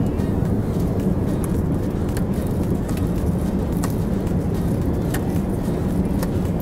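Steady low roar of an Airbus A380's cabin in cruise flight, the engine and airflow noise heard from a passenger seat. A few faint clicks come from a seatback tray table being handled.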